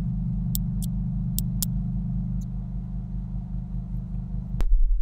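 A steady low hum with four quick clicks, likely a computer mouse, in the first two seconds. The hum cuts off abruptly near the end.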